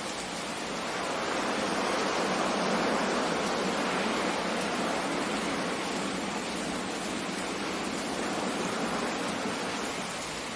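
Steady rushing noise of rain and sea surf, swelling gently a second or two in.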